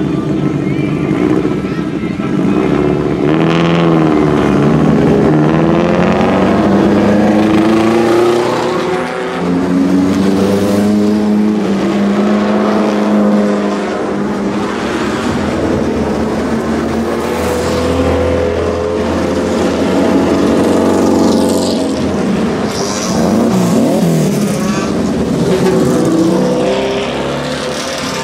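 A line of Fiat Uno and Alfa Romeo club race cars driving slowly past one after another, their engines running at low speed with repeated blips of the throttle, the pitch rising and falling as each car pulls away.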